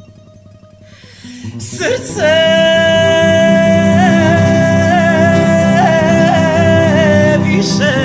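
Unplugged cover of a traditional song: soft acoustic guitar notes, then a singer takes a breath and holds one long high note with slight vibrato over the guitar from about two seconds in, breathing again just before the next line near the end.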